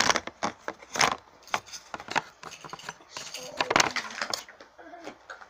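A run of irregular clicks, knocks and rustles from objects being handled close to the microphone, loudest at the start and about a second in.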